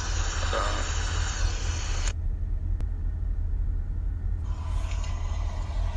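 Steady low rumble with a hiss over it, no words; the hiss drops away for about two seconds midway, leaving only the rumble and a faint click.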